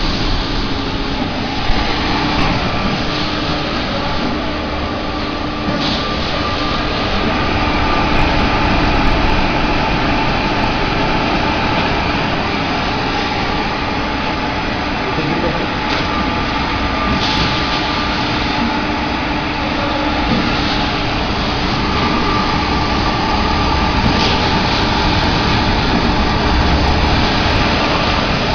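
Shrink-wrap packaging machine for bottled water running: a loud, steady mechanical noise with a steady hum and a few light clicks.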